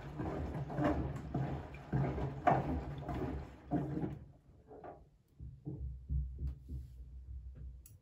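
Siemens front-loading washing machine in a wash cycle: water sloshing in the turning drum in repeated swishes over the low hum of the motor. About halfway through the sloshing fades, leaving a low rumble.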